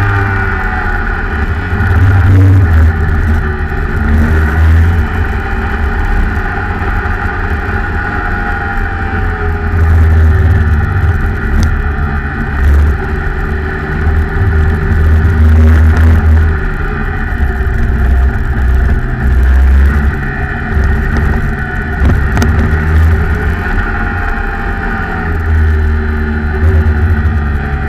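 Rotax Max 125cc two-stroke kart engine heard from on board at racing speed, its pitch rising on the straights and falling off into the corners. Heavy uneven low rumble, like wind buffeting the microphone, comes and goes throughout.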